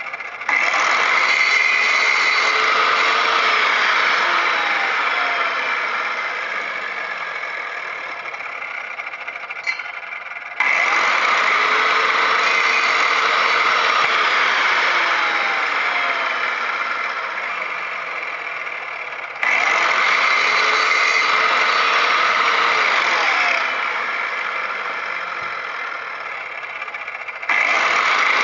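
Skil 3160 miter saw fitted with a 7-inch diamond blade grinding through stone veneer, three cuts in a row with a fourth starting near the end. Each cut starts abruptly and loudly, then the sound eases off as the blade winds down in a falling whine.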